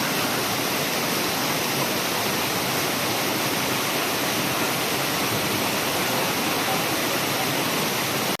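Waterfall: water pouring and crashing in a steady, unbroken rush.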